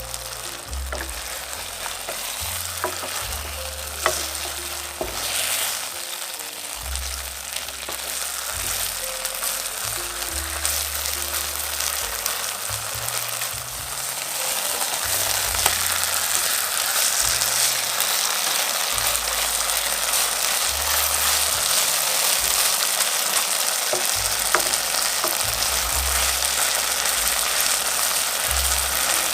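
Beef steak frying in butter in a hot pan, a steady sizzle that grows louder about halfway through, with a few light clicks of a utensil against the pan.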